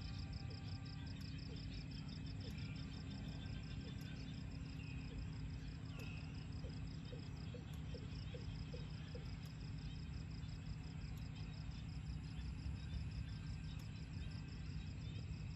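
Insects chirping in a rapid, even pulse that stops about halfway through, over a steady low rumble. A short run of quick low chirps comes near the middle.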